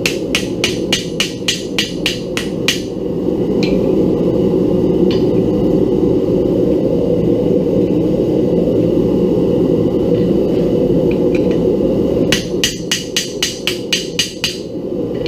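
Hammer blows on steel at the anvil, about four a second, in two runs: one at the start and one near the end. Between them a steady low roar takes over, the gas burner of the homemade forge.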